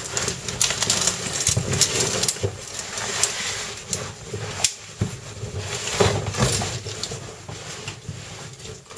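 A caver's oversuit and body scraping against the rock while squeezing down through a tight cave passage, with the metal harness gear (carabiners and other hardware) clinking and knocking in irregular scrapes and clicks.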